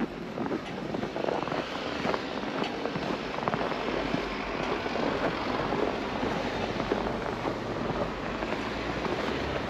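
Footsteps crunching through fresh snow in an uneven run of short crunches, over a steady rushing noise that swells through the middle.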